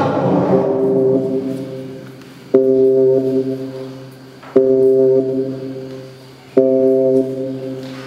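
Electronic music: a low synthesized chord struck three times, about two seconds apart, each one dying away, over a steady low drone.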